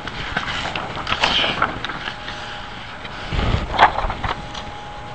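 Room noise with soft rustling and scattered light knocks, with a louder knock about four seconds in: paper and objects being handled.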